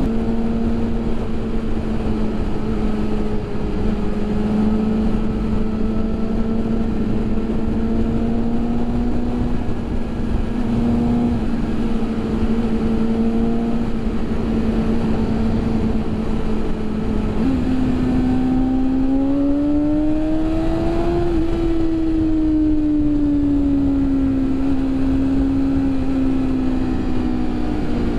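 2019 BMW S1000RR's 999 cc inline-four engine running at steady revs with wind noise. A little over halfway through, the revs step up and climb for a few seconds, then fall away gradually.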